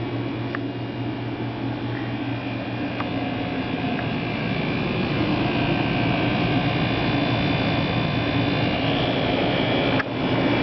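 1987 Friedrich Quiet Master 22,000 BTU window air conditioner running and blowing cold air: a steady rush of air over a low hum, with a brief drop in level near the end.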